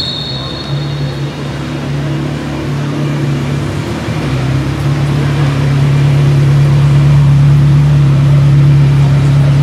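Ferrari 360 Modena's V8 idling as the car creeps along at walking pace, a steady low engine note that grows louder about four seconds in, echoing in a large hall.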